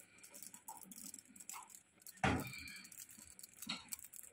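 Aluminium foil crinkling faintly as a small strip is rolled around the end of a wooden skewer, with one louder handling noise about two seconds in.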